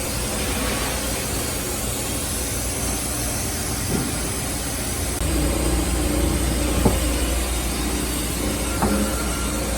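Takamaz X-15 CNC lathe and its gantry loader running: a steady mechanical hum that gets louder about five seconds in, with a few sharp clicks or knocks.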